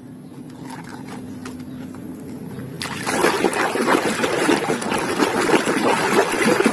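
Water splashing and sloshing in a basin as a hand scrubs a muddy toy truck under the surface. It starts abruptly about three seconds in and is continuous and loud. Before that there are only a few faint clicks.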